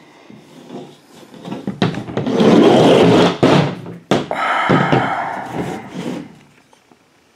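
Rifle being handled close to the microphone: a long stretch of rubbing and scraping with two sharp clicks, fading out about six seconds in.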